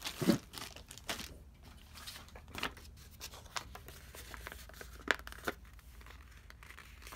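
Clear plastic bag of ink sample vials crinkling as it is picked up and handled, loudest just after the start. It is followed by scattered short clicks and rustles.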